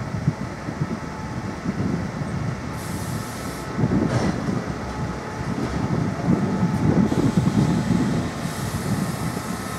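DB10 diesel locomotive's engine running with an uneven low rumble.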